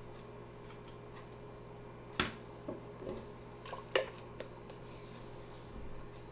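Plastic measuring spoon knocking against a stainless steel mixing bowl while grated ginger is scraped into it: two sharp clicks about two seconds apart, the second near four seconds in, with a few lighter taps between, over a steady low hum.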